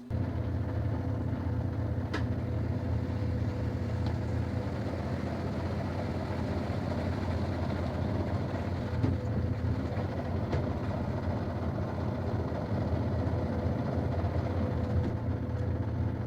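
A machine's motor starts abruptly and runs with a steady low hum and a faint steady higher tone.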